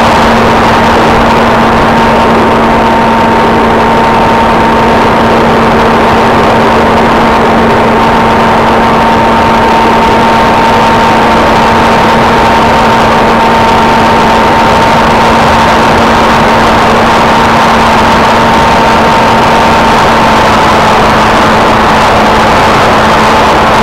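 ParkZone F-27C Stryker foam flying wing's electric motor and pusher propeller running at a steady pitch, heard from the onboard camera as a loud, constant hum under an even rush of air noise. The higher tone sags slightly near the end.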